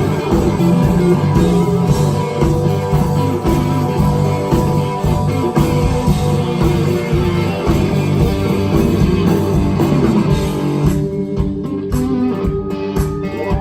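Live blues-rock band playing an instrumental passage, electric guitar to the fore over a steady beat. About eleven seconds in, the high end of the band drops away and the sound thins out.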